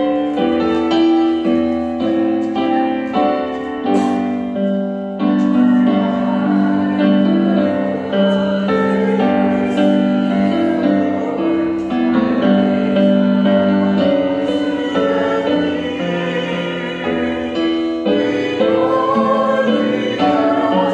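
Piano music with singing voices: a song with piano accompaniment, the wavering sung line growing stronger near the end.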